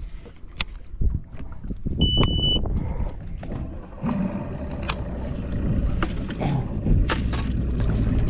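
Boat engine running with a steady low rumble that grows stronger about four seconds in, with scattered knocks and a short high beep about two seconds in.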